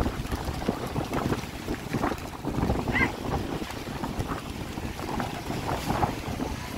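Wind buffeting the microphone over the wash of sea surf, with a brief high chirp about halfway through.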